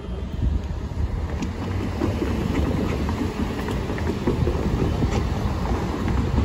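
Road traffic driving across a railroad grade crossing: a steady low rumble of car engines and tyres, with a few faint clicks.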